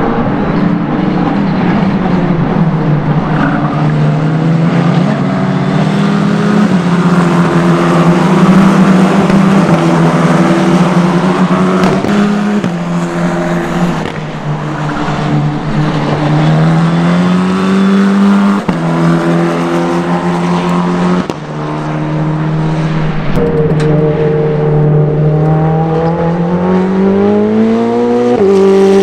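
Tatuus F4 single-seater racing cars' engines accelerating at full throttle. The engine note climbs and drops sharply with each upshift, several times over.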